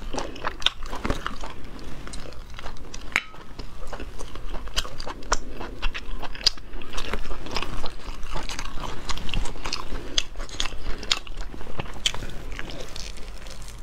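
Close-up eating sounds of a person biting, tearing and chewing braised skin-on meat on the bone, with many irregular sharp wet clicks and crunches.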